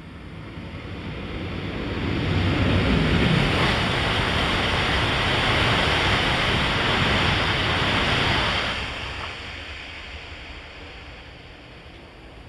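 Tohoku Shinkansen train passing straight through the station at about 291 km/h: a rushing noise of wind and wheels on rail that swells over about two seconds, holds steady, then dies away from about nine seconds in.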